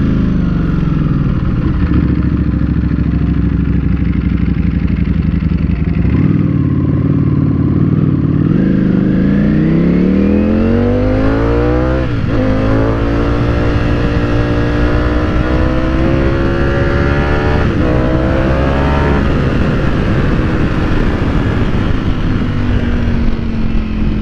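Ducati Panigale V4 S superbike's V4 engine heard from the rider's seat, pulling through the gears. The revs climb, drop at an upshift about halfway through, climb again to a second shift about three-quarters through, then settle and slowly fall near the end.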